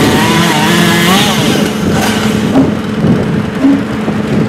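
Engine running steadily, its pitch wavering up and down in the first second or so, with a couple of short louder blips later on.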